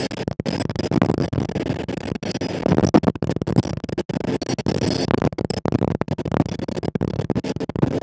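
Strong wind buffeting the microphone in gusts: a rough, low rumbling noise broken by many sudden brief dropouts.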